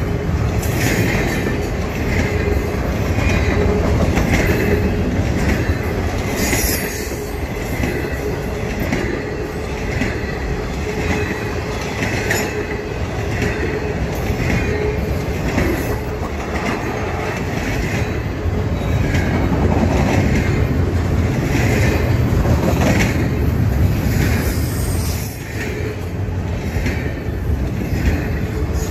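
Double-stack intermodal freight cars rolling past at speed. The wheels rumble steadily on the rails, with a rhythmic clatter about once a second as the trucks go by. A steady thin wheel squeal runs through the first half.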